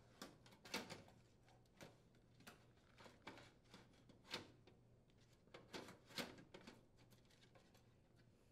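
Faint, scattered clicks and rustles of hands handling a control board assembly, its plastic wire connectors and ribbon cable against the range's sheet-metal panel, with the sharpest clicks near the start and about four seconds in.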